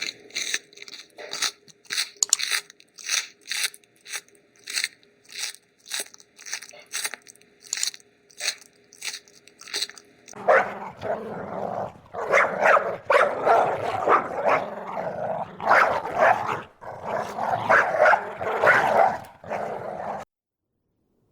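Dogs barking: quick short yaps at about two a second, then from about halfway a louder, denser stretch of overlapping barks that cuts off abruptly just before the end.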